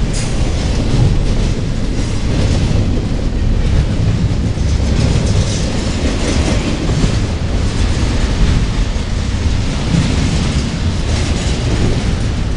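Double-stack intermodal container train of well cars rolling past close by: a steady, loud rumble of steel wheels on the rails with scattered clicks and clacks from the wheels and couplings.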